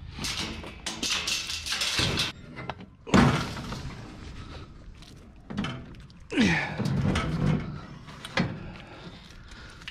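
A door being opened and items handled: rattling and scraping for about two seconds, a loud thunk about three seconds in, then more knocks and clatter.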